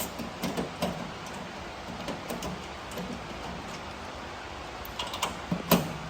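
Hand ratchet with a 17 mm socket clicking in short runs as nuts on a drum mower's belt cover are tightened, with a louder metal clink a little before the end.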